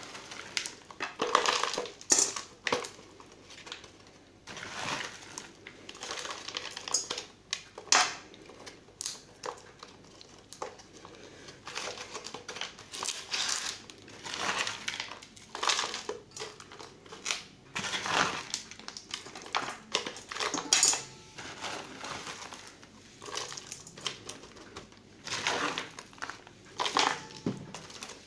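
Orchid bark chunks crunching and rustling as hands pack them around the roots in a cut-down plastic bottle pot, the thin plastic crinkling under the fingers. The sound comes in irregular crackling and scraping bursts.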